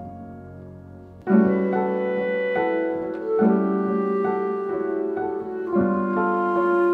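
Piano music: a soft passage, then louder chords come in about a second in and keep changing every second or so.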